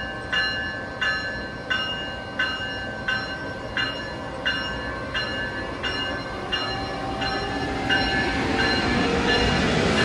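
Amtrak ACS-64 electric locomotive's bell ringing steadily, about three strokes every two seconds, as the train pulls along the platform. From about eight seconds in, a rising whine and growing rumble come in as the locomotive accelerates past.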